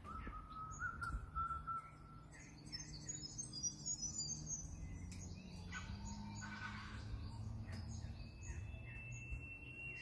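Wild birds singing in the bush: a long whistled note in the first two seconds, a cluster of quick high twittering notes, some rougher calls, then another long steady whistle over the last two seconds, with a low rumble underneath throughout.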